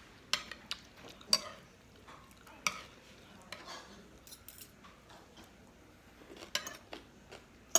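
Metal fork and spoon clinking and scraping against a plate as food is picked up, a scattered series of sharp taps, the loudest about a second in, at under three seconds, and near the end.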